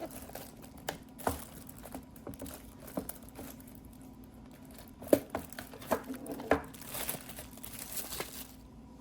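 Irregular crinkling and rustling with scattered sharp clicks and taps, as of paper or plastic being handled close to the microphone. It stops shortly before the end.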